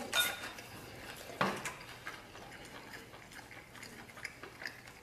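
Chopsticks clicking against a ceramic rice bowl, with one louder knock about a second and a half in and sparse small clicks otherwise.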